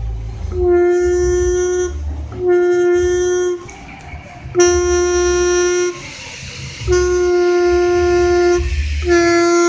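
New original Modenas Dinamik 120 reed valve blown through by mouth, its reed petals vibrating into a steady tone. Five blows of about one to two seconds each, all at the same pitch; the last one runs past the end. A reed that still sounds like this has soft rubber and petals that seal tightly; a worn, loose, hardened reed no longer sounds.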